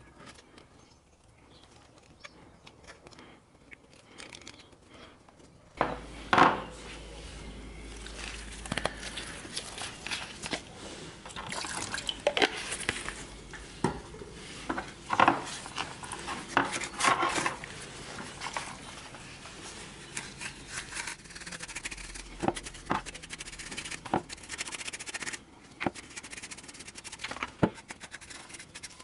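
A motorcycle front brake caliper being cleaned in a plastic parts tray during a brake overhaul. From about six seconds in there are scattered clinks and knocks of the metal caliper against the tray, along with wet rubbing and scrubbing.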